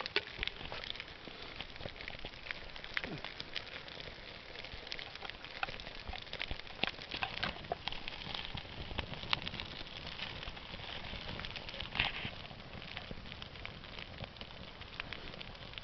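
Small kindling fire of dry grass, cedar bark and split wood crackling as it catches, with many short sharp pops over a steady hiss.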